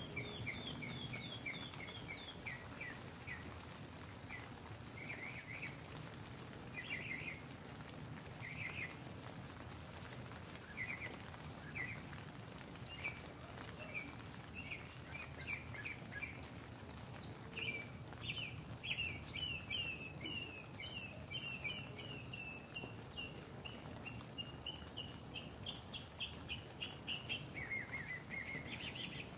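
Birds chirping in quick runs of short repeated notes, busier in the second half, over a steady soft patter of rain on the tent fabric.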